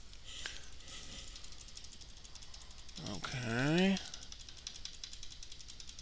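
Rapid, evenly spaced clicking of a keyboard key tapped over and over to get into the BIOS as the computer boots. A short wordless hum from the man, rising and falling in pitch, comes about three seconds in.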